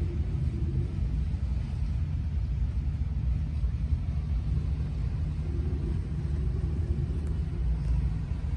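Motor yacht under way: a steady low rumble of engine and hull noise, with a faint hum that comes and goes.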